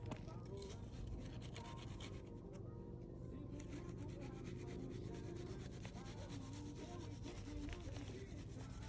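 Repeated scraping and rubbing of a metal bar worked against the concrete base of a steel post and the gritty soil around it.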